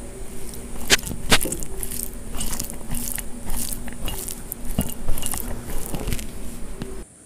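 Fingers mixing and gathering mutton biryani on a steel plate: wet, sticky squishing with sharp clicks of fingers and rice against the metal, cutting off suddenly near the end.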